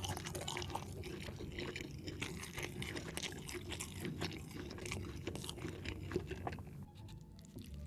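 Close-miked wet chewing of spinach chicken curry, with many small mouth clicks and smacks, going quiet about seven seconds in.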